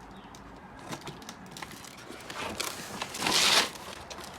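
Cardboard box and packaging being handled and opened: scattered rustles and light knocks, with a louder scraping burst of about half a second roughly three seconds in.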